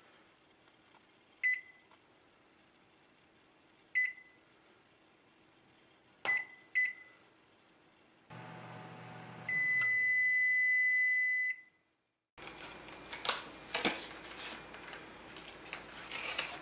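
Sharp microwave oven: four short keypad beeps as it is set, then its hum while running, then one long beep of about two seconds. After a break comes the rustle and tearing of a cardboard box being opened by hand.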